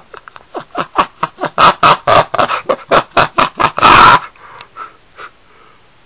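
A person laughing hard in rapid, wheezing, breathy gasps, building to a loud burst about four seconds in, then trailing off.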